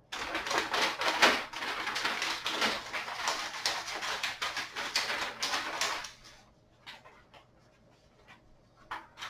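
Packaging being handled: a dense, irregular crinkling and rustling that starts suddenly and stops about six seconds in, followed by a few scattered clicks.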